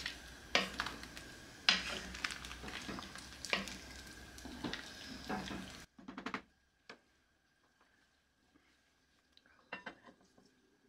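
Wooden spoon stirring a thick, boiling chicken and potato soup in an enameled cast-iron Dutch oven, scraping with occasional knocks against the pot. About six seconds in, the sound cuts off abruptly to near silence, with a few faint clicks near the end.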